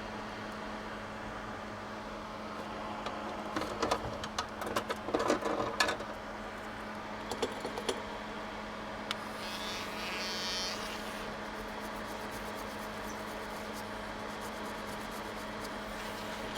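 Steady buzzing hum, with several seconds of small clicks and scraping from tools working on the phone's circuit board, then a brief hiss.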